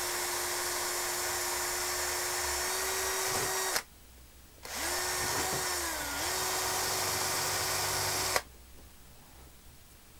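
Electric drill boring a hole through the plastic back casing of a portable 12 V power station. The motor runs steadily for about four seconds, stops, then runs again for about four seconds, its pitch dipping briefly midway as the bit bites.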